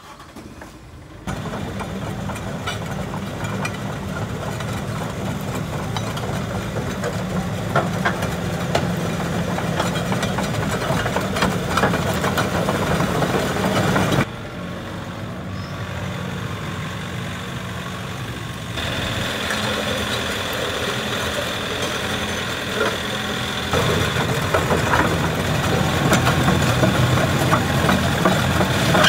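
Kobelco SK85MSR compact excavator's diesel engine idling steadily; its level jumps abruptly up or down a few times.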